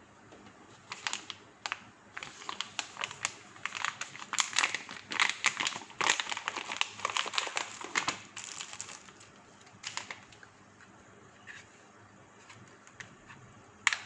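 Clear resealable plastic bag crinkling and rustling in quick bursts as hands open it and pull out a small plastic storage box, dying away after about ten seconds. Near the end comes a single sharp click as the box is handled.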